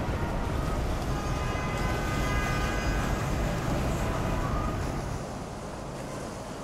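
Boat engines running with the wash of water as motorboats pass on the river, a steady rumble. A pitched tone sounds over it from about a second in for two seconds or so. The rumble eases near the end.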